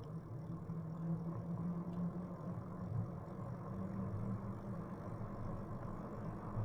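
Electric bike under way: a steady hum from the motor and tyres rolling on the trail, holding level throughout.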